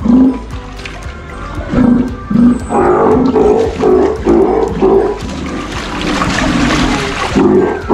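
Young Steller sea lion calling. It gives a few short roaring calls, then a quick run of them about three a second, and a longer, hoarser roar near the end.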